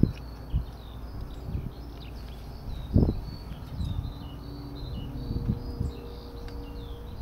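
A camping gas canister and its stove head being handled: a series of dull knocks and clunks, the loudest about three seconds in, over continuous birdsong.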